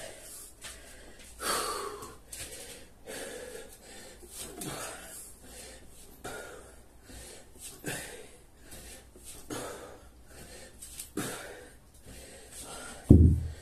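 A man breathing hard and wheezing, winded from a long burpee workout, with one heavy breath about every second and a half. A louder, lower burst comes near the end.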